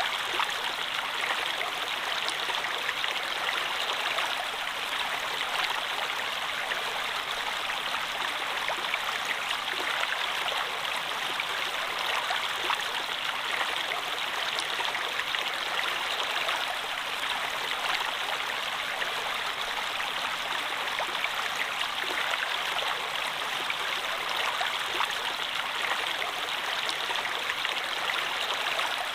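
Flowing water, a steady, even rushing with no pauses or changes.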